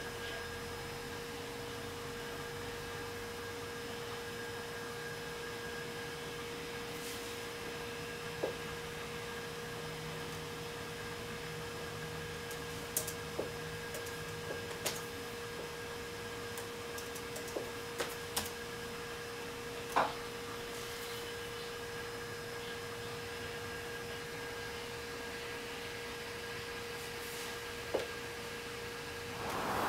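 Steady high-pitched whine from the energised servo drives of a direct-drive telescope mount. A faint low hum comes in for several seconds in the middle as the mount slews. Scattered laptop key clicks sound over it.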